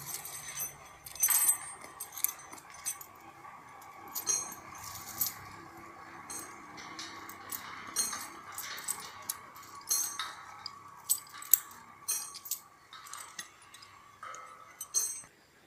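Steel guy-wire fittings (turnbuckle, shackles, wire-rope clips) and a spanner clinking and rattling together as they are handled and fitted, in many short, irregular metallic clinks.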